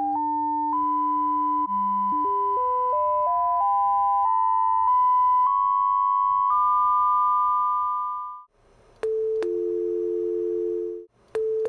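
Signal-generator sine tones mixed and played through a loudspeaker: one tone held steady near 1 kHz while a second steps upward in pitch several times, cutting off about eight and a half seconds in. About a second later a telephone dial tone starts with a click, breaks off briefly near the end and comes back.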